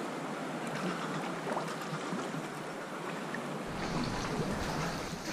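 Sea water lapping and sloshing against rock and the kayak inside a sea cave. About three and a half seconds in, a deeper rumble joins it.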